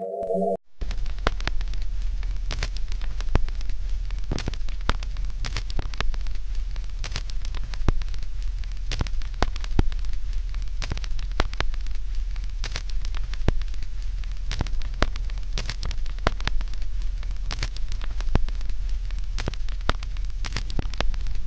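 Dense, irregular crackling and popping over a steady low hum, with no tune.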